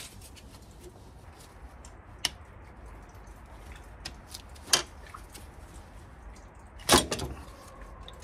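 Hose clamp pliers and a spring hose clamp clicking and clacking as a coolant hose is worked back onto the thermostat housing: a few sharp metal clicks, the loudest about seven seconds in.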